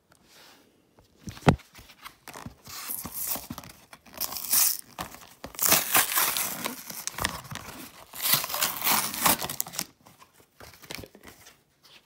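A trading-card blister pack being torn open by hand: a sharp click about a second and a half in, then several bursts of ripping cardboard and crinkling plastic.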